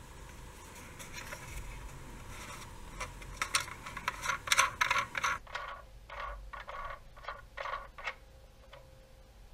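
Hands handling a small plastic LED video light, a Godox LED64: a run of clicks and scrapes, densest about four to five seconds in, then a handful of separate short scrapes.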